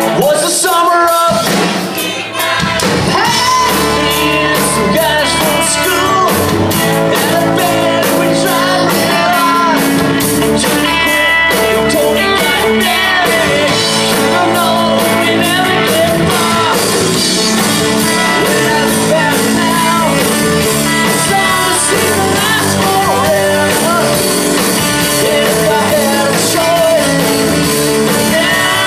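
Live rock band playing loud: electric guitars and a drum kit, with a singer. The sound dips briefly about two seconds in before the band carries on.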